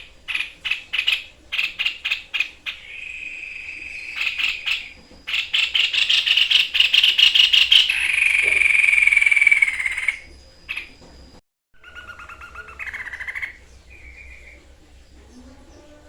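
Tepus dada putih (white-chested babbler) singing loudly in full song: fast runs of sharp repeated notes, then a long buzzy trill that falls slightly. About eleven seconds in there is a brief break, followed by softer, lower whistled calls.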